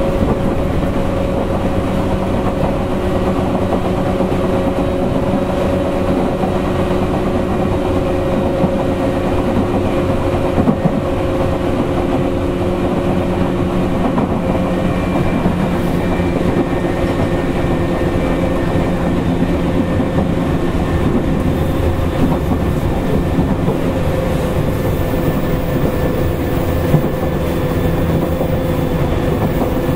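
Tokyu 8500 series electric train heard from inside a motor car while running at a steady speed: a constant drone of traction motors and gearing, with a few light clicks from the wheels over rail joints.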